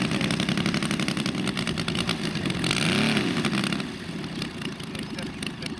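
Saito FG90R3 three-cylinder four-stroke petrol radial engine of a 1/5-scale RC Corsair running at low throttle while taxiing. About three seconds in it is blipped briefly up and back down in pitch, then settles back to a quieter idle.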